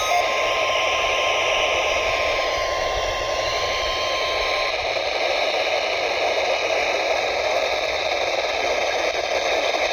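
Weather radio receiver hissing with heavy static on a weak signal. Under the hiss runs a faint steady tone, the NOAA Weather Radio warning alarm tone of a weekly test, which cuts off about five seconds in.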